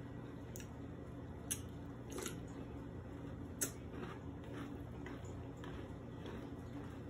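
Close-miked eating of crunchy cereal in milk: soft chewing and about ten sharp clicks of a metal spoon against a plastic container, the loudest a little past halfway, over a steady low hum.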